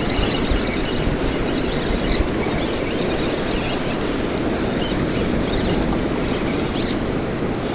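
Steady, unbroken roar of fast, churning river water rushing out below a dam.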